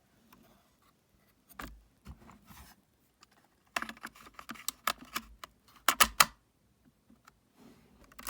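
Plastic clicks and knocks of a portable cassette recorder being handled and its keys pressed, in irregular clusters with the loudest pair of clicks about six seconds in.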